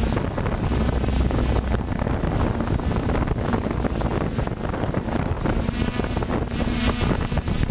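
FPV quadcopter's motors and propellers buzzing steadily in flight, largely buried under heavy wind rush on its onboard microphone.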